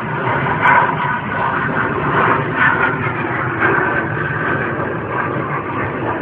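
Jet engine noise from a US Navy Blue Angels F/A-18 Hornet flying overhead, heard as a steady rushing rumble with small swells, picked up on a phone's microphone.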